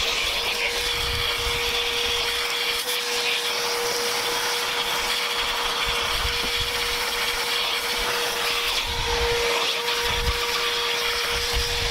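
Vacuum cleaner running steadily with a constant whine, its nozzle sucking leaves, sticks and bugs out of a car radiator.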